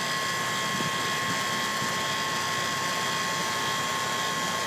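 York central air conditioner's outdoor condensing unit running steadily, its compressor going with a steady whir and several steady high tones. It is running normally again now that the bloated run capacitor has been replaced.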